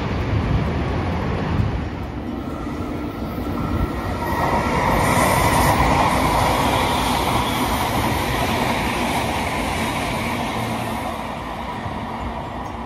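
A train running past on the rails, growing louder about four seconds in and fading away toward the end.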